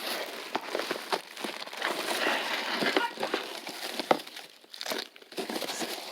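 Candy wrappers and the paper piñata crinkling and rustling as wrapped candy is pulled out by hand, with many small irregular clicks and a short lull about four and a half seconds in.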